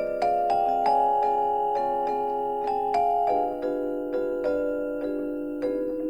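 Background music: a gentle melody of struck notes, each ringing and fading, over sustained chords.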